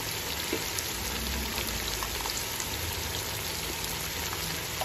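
Beef pieces frying in oil in a steel pot: a steady sizzle flecked with small crackles.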